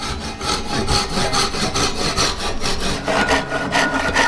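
Hand saw cutting across a thin strip of plywood clamped in a bench vise, in quick, steady back-and-forth strokes.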